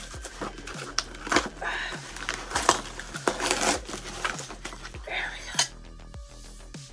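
Aluminium parts of a Lowery embroidery workstand clinking and knocking together as they are rummaged out of their box, with packaging rustling. The knocking stops about five and a half seconds in.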